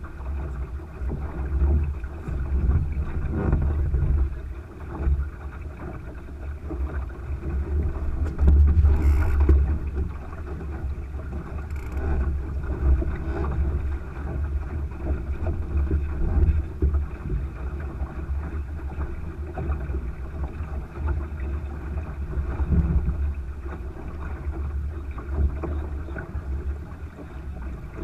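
Wind gusting on the microphone as a low, uneven rumble, over a steady wash of water along the hull of a Thistle sailing dinghy under sail. The wind is loudest about nine seconds in.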